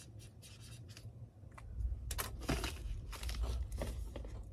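Rustling, scratching and scraping as things are handled, in scattered short strokes, with a low rumble coming in about two seconds in.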